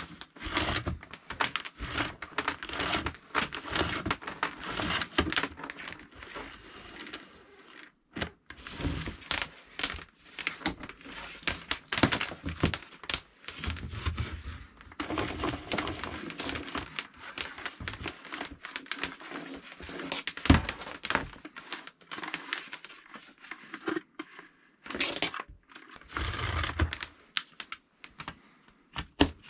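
Hands handling objects: irregular clicks, knocks and rustling, with one sharp knock about twenty seconds in.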